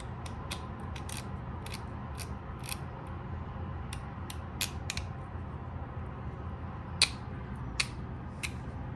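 Axial Ryft RC truck's rear axle differential gears turned by hand through the driveshaft, with irregular clicks and catches: the axle runs rough and binds instead of spinning freely.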